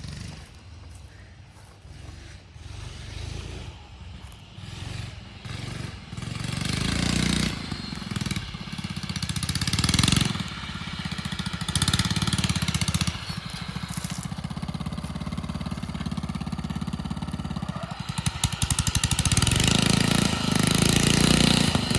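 Riding lawn mower engine running hard as the mower drives around a track, its sound swelling and fading several times, loudest about seven and ten seconds in and near the end.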